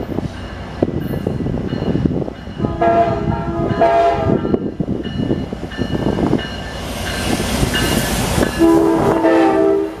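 Metra commuter train's diesel locomotive approaching and passing close, its engine and wheels rumbling louder as it nears. The air horn sounds twice: a blast about three seconds in and a louder one near the end that cuts off sharply.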